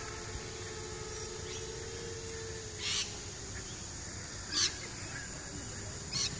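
Faint, steady whine of the MicroVolt 250 FPV quadcopter's electric motors at a distance, fading out about two and a half seconds in, over a steady hiss. Three short, harsh bursts stand out: about three seconds in, again a second and a half later, and near the end.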